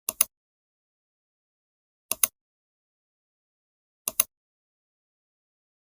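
Computer mouse clicks: three short double clicks about two seconds apart, each a quick press-and-release pair, against digital silence.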